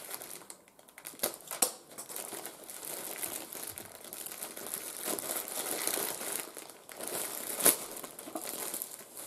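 Plastic poly mailer bag crinkling and rustling as it is gripped and pulled open by hand, with a few sharp crackles, the loudest about eight seconds in.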